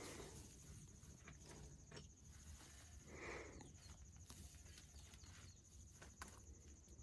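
Near silence outdoors: a few faint taps and scuffs, one soft brief sound about three seconds in, and a steady faint high-pitched trill.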